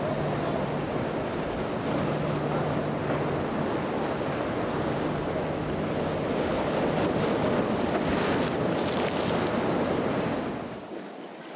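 Wind buffeting the microphone over surf rushing in the inlet, with the steady low hum of a boat's engines in the first half. The rushing drops away sharply about a second before the end.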